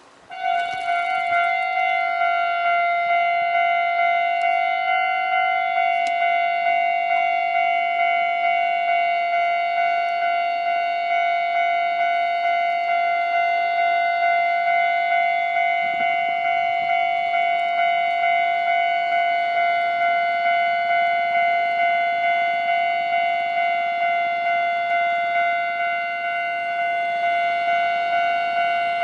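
Japanese railway level-crossing alarm ringing: a pitched electronic bell tone repeating rapidly and evenly, starting abruptly.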